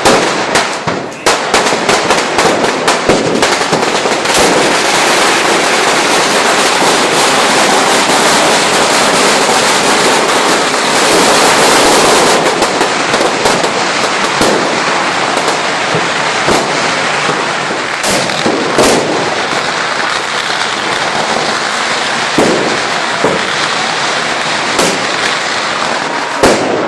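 Firecrackers and bangers going off in dense, rapid crackling that merges into a continuous crackle for several seconds. It then thins to scattered single loud bangs.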